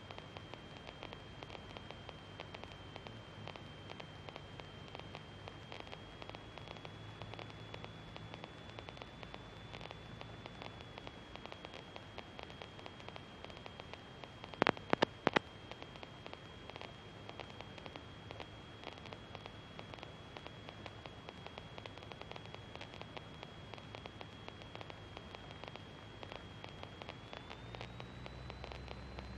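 Faint hiss and crackle of the cockpit radio and intercom audio feed, with a thin steady high-pitched whine and a faint low hum. A quick cluster of three or four sharp clicks comes about halfway through.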